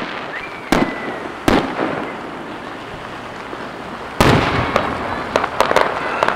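Aerial firework shells bursting: single sharp bangs about three-quarters of a second and a second and a half in, a louder bang with a rumbling tail about four seconds in, then a quick run of crackling pops.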